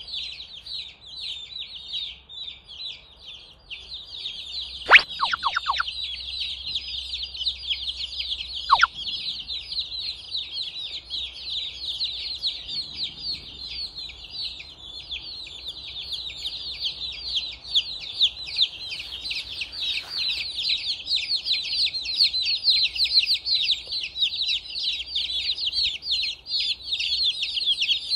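A brood of young chicks peeping without a break: many high, short, falling peeps overlapping. Twice, about five and nine seconds in, a louder whistle-like sound glides steeply down in pitch.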